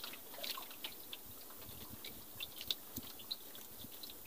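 Faint, scattered small clicks and taps, a few a second and irregular, over a light steady hiss.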